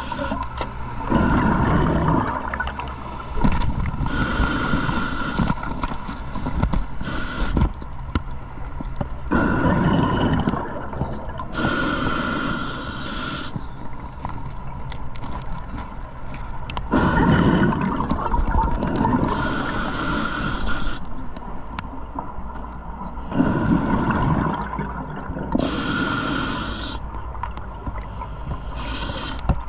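Underwater recording of a scuba diver breathing through a regulator: a gurgling rush of exhaled bubbles and then the hiss of an inhale, repeating about every seven to eight seconds.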